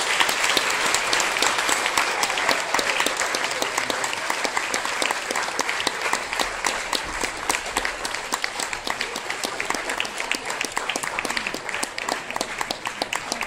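Audience applause, many hands clapping together, slowly thinning and quietening toward the end until single claps stand out.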